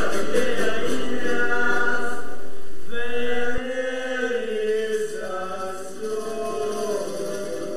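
Background music of early medieval song: voices singing a slow, chant-like melody. The music drops suddenly to a quieter level about three and a half seconds in.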